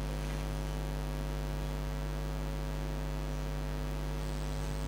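Steady electrical mains hum: a constant low drone with a buzzy stack of overtones.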